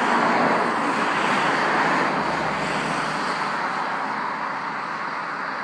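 Road traffic: the steady tyre-and-engine rush of a passing vehicle, slowly fading away.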